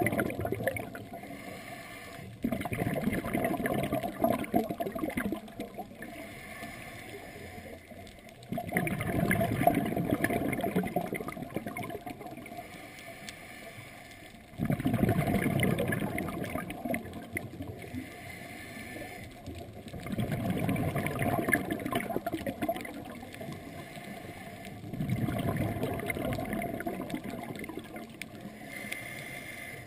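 Scuba diver breathing through a regulator, heard underwater: about every five to six seconds a burst of exhaled bubbles gurgles for a few seconds, with quieter stretches of inhalation between them.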